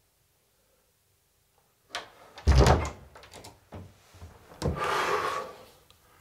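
A wooden door is shut with a loud heavy thud just after a sharp click. A few lighter clicks and knocks follow, then a longer rustling noise.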